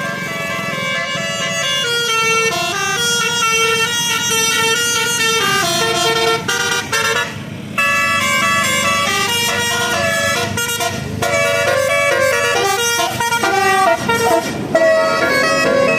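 Indonesian tour bus 'telolet basuri' multi-tone musical air horn playing a melody, its notes stepping from pitch to pitch, with a couple of short breaks about halfway through and a steady low rumble underneath.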